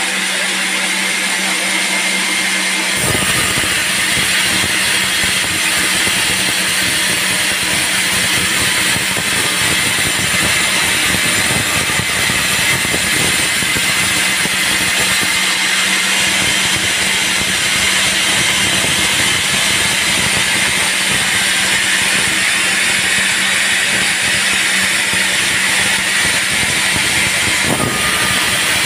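Band sawmill running steadily, a constant machine hum under dense sawing noise as it cuts teak; the sound fills out lower down about three seconds in.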